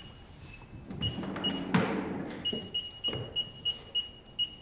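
Electronic keypad on a metal locker unit beeping with each key press: a run of short high beeps, a few at first, then a quicker string of about three a second in the second half. A couple of soft thumps come in between, the loudest less than two seconds in.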